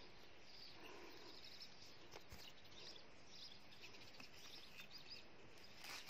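Near silence: faint outdoor garden ambience with a few faint, distant bird chirps.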